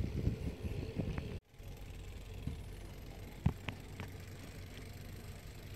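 Riding noise from a YouBike rental bicycle: wind buffeting the microphone and low road rumble that cuts off abruptly about a second and a half in, followed by a quieter steady rumble with a few sharp clicks and rattles.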